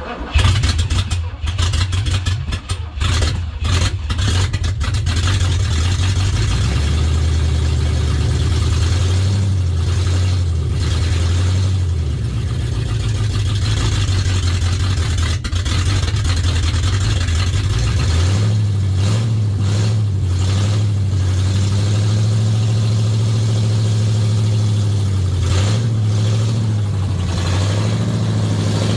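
Mercedes-Benz 500SEL 5.0-litre V8 firing and catching on its first start after a top-end overhaul. It runs unevenly for the first few seconds, then settles into a steady idle, and the idle speed steps up about two-thirds of the way through.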